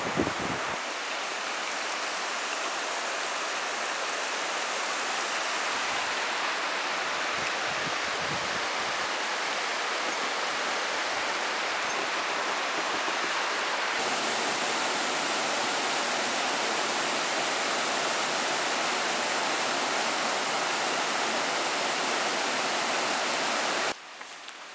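Rushing stream water, a steady even wash of noise that cuts off abruptly near the end.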